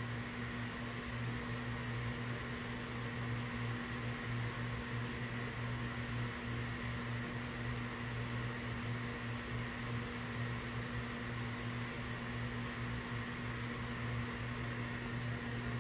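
Steady low electrical or fan-like hum with a faint hiss, unchanging throughout.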